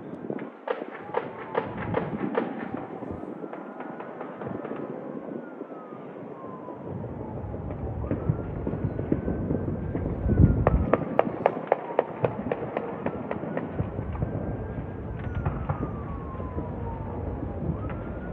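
Fireworks popping and crackling in rapid clusters, once about a second in and again around ten seconds in, with a steady rumble beneath. An emergency-vehicle siren wails slowly up and down throughout.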